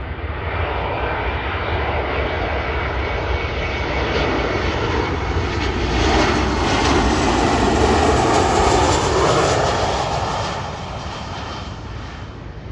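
Boeing 737 twin-jet on final approach passing low overhead: its engine roar builds, is loudest around eight seconds in, then fades as it goes by to land.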